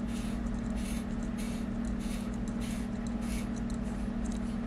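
LED bulb's metal screw base being twisted into 3D-printed plastic threads, making a faint scrape with each turn, roughly once or twice a second, over a steady low hum.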